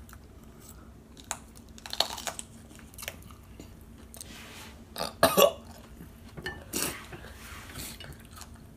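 People eating spicy instant noodles: noodles slurped off forks and chewed, in short scattered mouth noises, with a louder throaty burst about five seconds in and another just before seven seconds.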